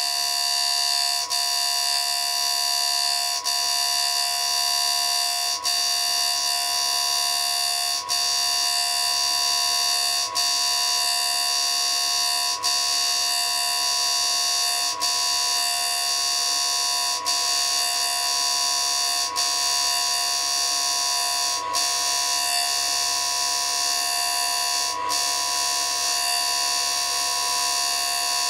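D-bit grinder running a 125 mm, 1.2 mm cut-off wheel as it grinds a groove into a steel MIG welder drive roller: a steady high-pitched whine, with a short tick about every two seconds.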